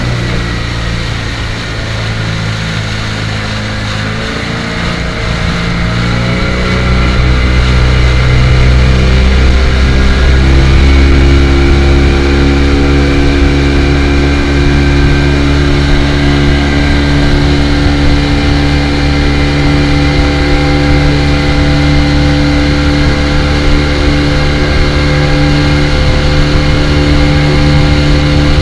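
Speedboat engine running under way, speeding up about five seconds in with its pitch rising, then holding a steady, louder pitch.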